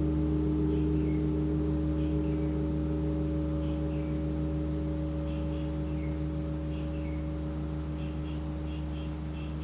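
The low hum of a gong ringing on and slowly fading away after a strike, several steady tones sounding together. Faint short high chirps come and go over it.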